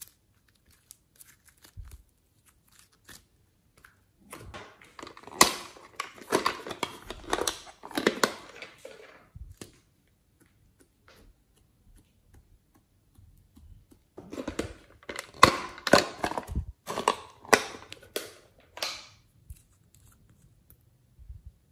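Hands working slime and soft modeling clay, giving crackly, sticky handling sounds in two bouts with a quiet spell between them.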